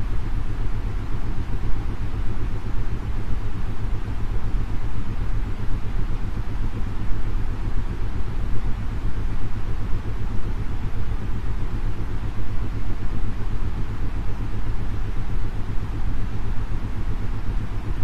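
Steady synthetic white noise, heaviest in the low end, with an isochronic tone pulsing on and off several times a second beneath it: a brainwave-entrainment track stepping from 9.5 Hz down to 7.83 Hz, meant to calm the listener towards sleep.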